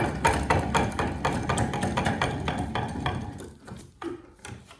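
Bench vise being spun open or closed with one finger: a fast run of metal clicks and clacks, about four or five a second, that slows and fades a little past three seconds in, then two lighter knocks. The reworked screw now turns freely instead of sticking.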